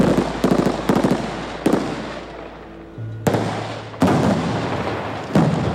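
Pyrotechnic charges going off in a string of sharp blasts, each ringing out: several quick ones in the first two seconds, then heavier ones about three, four and five and a half seconds in.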